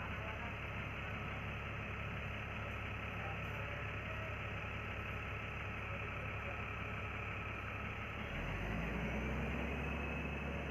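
City bus engine running, heard from inside the bus as a steady low rumble with road noise. About eight seconds in, the low rumble grows louder.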